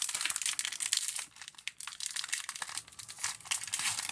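Foil wrapper of a Pokémon card booster pack crinkling as it is handled and opened, with irregular crackles that ease off a little midway.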